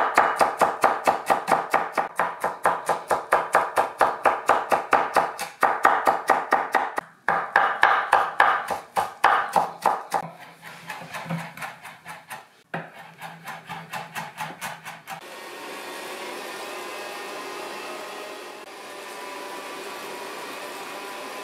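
Rapid chopping with a Miyabi chef's knife on a wooden cutting board, several strokes a second, dicing red bell pepper and then mincing fresh herbs. About fifteen seconds in, the chopping gives way to the steady hum of a stand mixer's meat-grinder attachment grinding meat.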